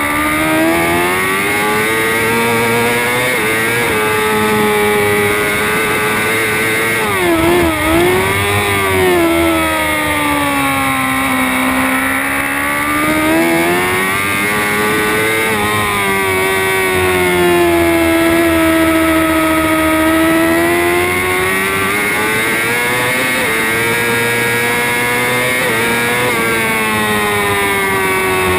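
Moto2 racing motorcycle's Honda CBR600RR inline-four engine at racing speed, heard from onboard. The engine note rises and falls through the gears, with a quick run of downshifts about eight seconds in. The revs are lowest a few seconds later, then climb steadily again.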